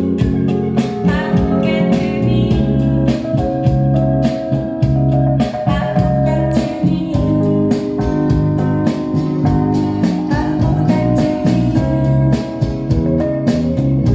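A blues song, a woman singing over guitar with a steady beat, played back over hi-fi loudspeakers driven by a 300B tube amplifier and heard in the room.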